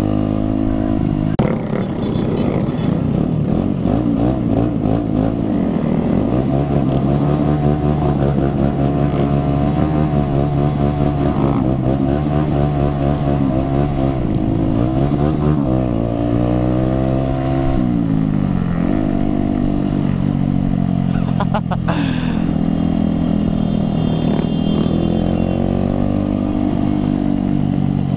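Sport motorcycle engine running while riding at about 50 km/h, its pitch dipping and climbing several times with the throttle, over steady road and wind rumble.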